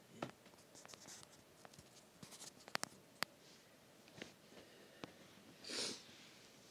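Sock fabric rustling and hand-held phone handling noise as a sock is pulled onto a foot one-handed: faint scratchy rubbing with scattered small clicks and a louder rustle near the end.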